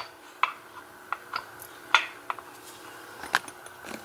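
Light metallic clicks and taps, about half a dozen scattered through, from small metal lock parts being handled as a pin-tumbler lock is taken apart and its pins come out.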